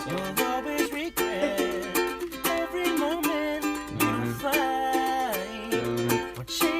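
Background music: a song with plucked strings and a moving melody over a steady beat.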